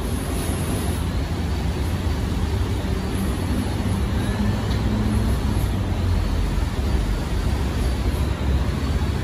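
Steady low rumbling background noise of an urban street, with no distinct single event standing out.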